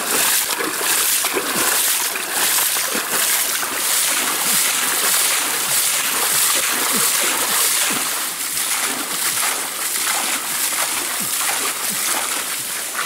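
Muddy water splashing over and over as it is scooped up and flung out of a shallow mud pool by hand, about one to two splashes a second.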